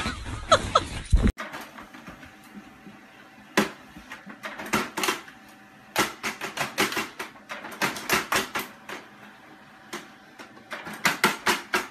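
A short burst of loud rumbling and squeaks that cuts off suddenly about a second in. Then a laser printer running, with irregular clusters of sharp clicks and taps from its mechanism and a cat's paws batting at the paper coming out.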